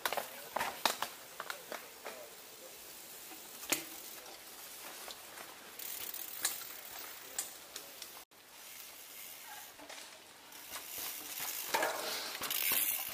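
Mountain bike rolling past on a dirt forest trail, its knobby tyres crunching over the dirt, loudest near the end as the rider passes close. Scattered sharp clicks and ticks come earlier.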